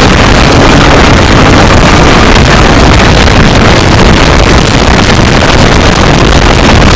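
Car driven at speed on a track, heard from inside the cabin: engine, road and wind noise blend into one very loud, steady wash with no clear engine note.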